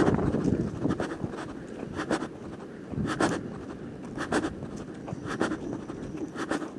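Footsteps of a hiker on a trail, a scuffing step about once a second.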